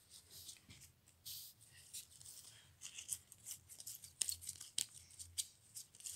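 A stack of stiff, glossy Panini football trading cards being leafed through in the hand: a run of short dry flicks and rasps of card against card, sparse at first and coming quickly from about halfway in.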